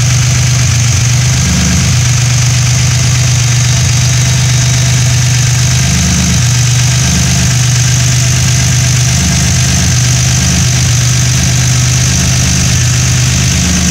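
Turbocharged race-car engine idling steadily, close up under the hood, with a slightly uneven low note and a steady high hiss, warming up after a cold start.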